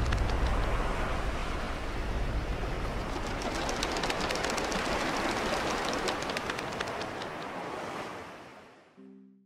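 Sea surf washing steadily on a beach, with many sharp little ticks over it, fading away near the end. Just before the end a short, clear musical note begins.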